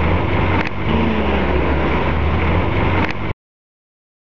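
Loud, steady low rumble with hiss, cutting off abruptly about three seconds in.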